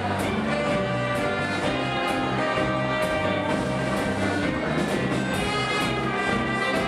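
Live dance band with brass playing ballroom dance music, with a steady ticking beat about twice a second.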